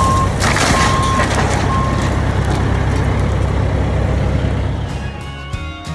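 Diesel engine of a heavy work vehicle running steadily while its backup alarm beeps about once a second, with the beeping stopping about two seconds in. Music fades in near the end.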